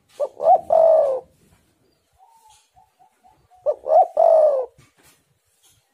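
Spotted dove cooing: two phrases about three seconds apart, each of two quick short notes followed by a long, slightly falling coo. Faint short notes come between the phrases.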